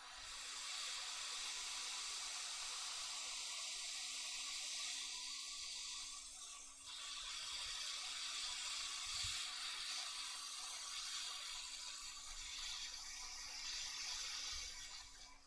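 Hot air rework station blowing with a steady hiss, heating freshly fluxed components on a circuit board. The airflow dips briefly about six and a half seconds in and cuts off near the end.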